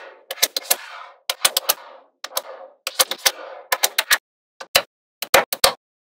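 Magnetic balls clicking and snapping together as strips of them are pressed onto a wall of balls: quick clusters of two to four sharp clicks, each with a brief rattle, about once a second.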